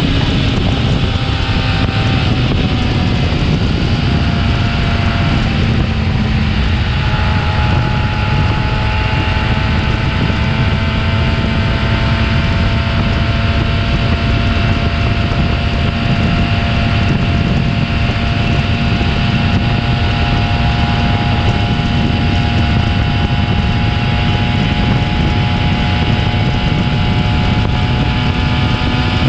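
Yamaha R6 sport bike's inline-four engine running steadily through its stock exhaust. Its pitch dips slightly about a second in, then rises slowly from about six seconds on.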